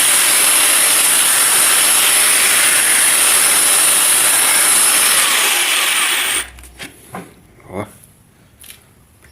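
Makita belt sander running at full speed with a steady high whine, sanding a piece of wood, then switched off about six seconds in; a few light knocks follow.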